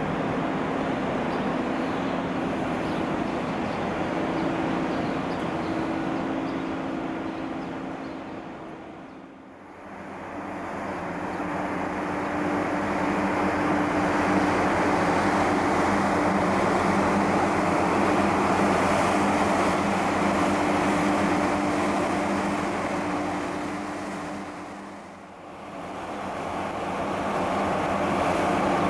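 Steady hum and rush of a tanker ship's engine and deck machinery as it creeps into a canal lock, with a couple of low steady tones in it. The sound fades down and back up twice, about a third of the way in and near the end.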